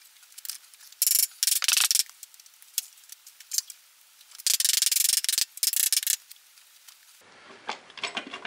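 Scraping and rubbing as the metal engine side cover of a Honda Passport C70 is worked loose by hand, in three bursts of a second or two each.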